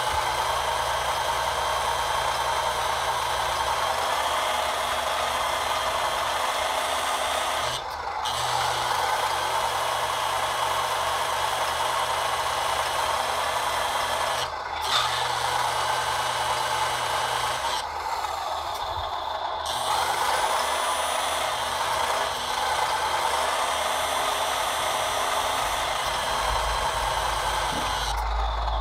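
Hydraulic pump of an RC truck's Palfinger loading crane running steadily while the crane moves, dropping out briefly three times as the controls are released.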